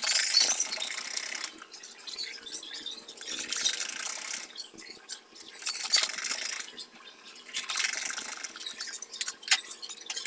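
Shiny synthetic bag fabric rustling and crinkling as it is bunched and pushed through a sewing machine, in spells every couple of seconds, with a few sharp clicks near the end.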